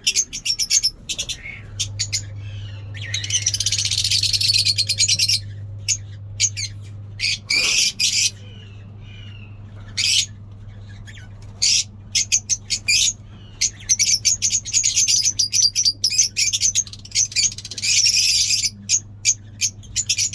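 A flock of lovebirds chattering in an aviary: fast, shrill chirps that come in dense runs with a few short pauses between them.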